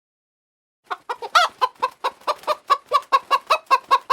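Chicken clucking: a quick run of short clucks, about five a second, starting about a second in, with one louder, higher squawk early in the run.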